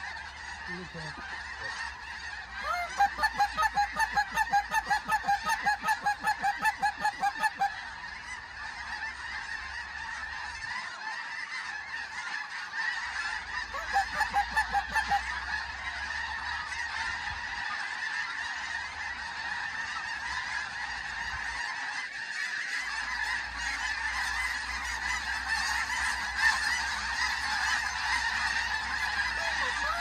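A huge flock of snow geese calling overhead, a dense, continuous din of high yelping honks. A louder, closer run of rapid honks stands out from about three seconds in for several seconds, and again briefly near the middle.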